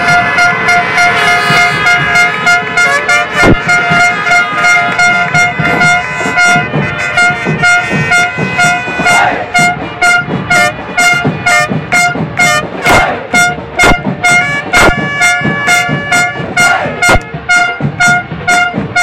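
A stadium crowd of football supporters chanting over a fast, even drumbeat, with a horn blowing a pulsing, repeated tone over it.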